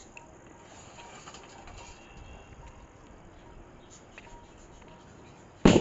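A lit firecracker's fuse burning with only faint crackle, then one sudden loud firecracker bang near the end.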